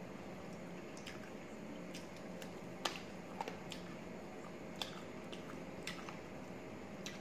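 Close-up eating sounds of rice and chicken liver curry eaten by hand: chewing with scattered wet clicks and smacks, the sharpest about three seconds in, over a steady faint hum.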